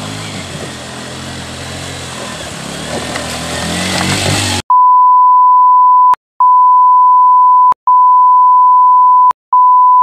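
A 125cc scrambler motorcycle engine running as it ploughs through a shallow river, with water splashing, getting louder toward the middle. About halfway it cuts off abruptly and a loud, steady 1 kHz beep tone takes over, broken three times by short gaps with clicks.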